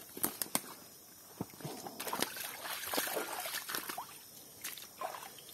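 Water sloshing and splashing with a few sharp knocks near the start, as of a person moving through shallow water.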